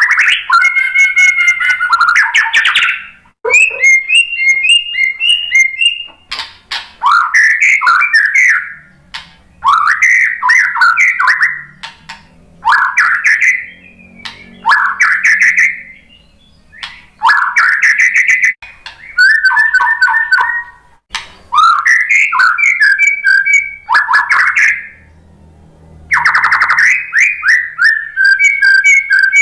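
Male white-rumped shama singing: about a dozen loud phrases of one to three seconds each, with short pauses between them. The phrases mix clear whistles with fast trilled notes.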